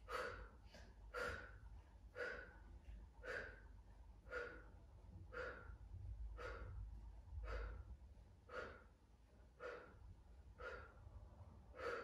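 A woman's short, sharp exhalations through the mouth, one about every second, keeping time with a set of Pilates torso-lift repetitions.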